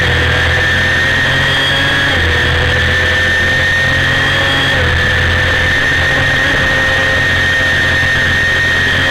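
1990 Honda CBR250RR's 250 cc inline-four engine running hard under race conditions, a steady high-pitched whine over rushing wind noise on the onboard microphone. Its pitch dips briefly twice, about two seconds in and again near five seconds.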